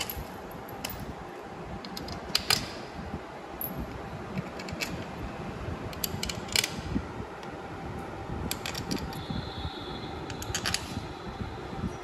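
Scattered light metallic clicks and taps of small bolts being handled and threaded by hand into a motorcycle engine's magneto side cover, over a steady background hum.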